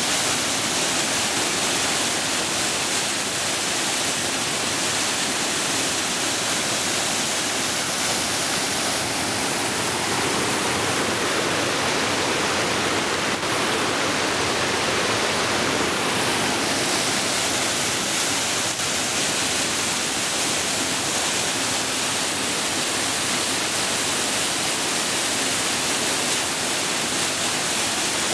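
Small waterfall of white water pouring down a rock chute, a steady rushing noise. For several seconds in the middle the hiss softens and the rush sounds lower.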